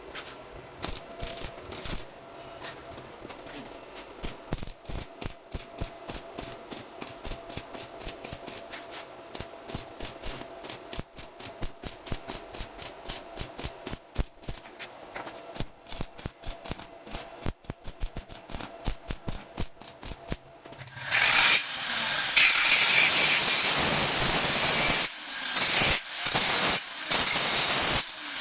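Metalworking on a steel window grill: many irregular sharp clicks, then a loud steady hissing noise that starts about three quarters of the way in and stops and restarts a few times.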